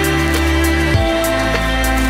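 Background music: sustained chords over a low bass line that changes note about once a second, with a steady light beat.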